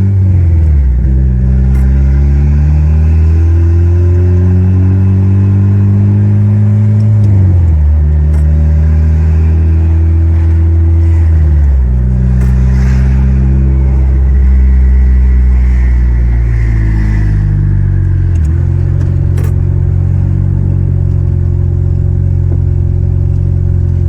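Turbocharged Honda K20 four-cylinder engine accelerating through the gears: its pitch climbs, drops sharply at upshifts about 7, 12 and 18 seconds in, and climbs again after each shift.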